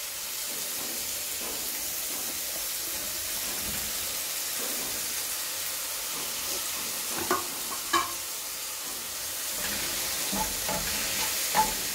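Onion, tomato and green chilli sizzling steadily in oil in a frying pan as canned tuna is tipped in and stirred. A few short sharp knocks at about seven and eight seconds and again near the end.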